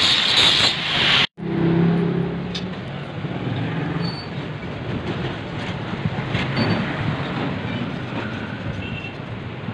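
Angle grinder grinding down a weld on a steel frame, stopping abruptly a little over a second in. After it, a quieter steady background rumble with a low hum and a few faint clicks.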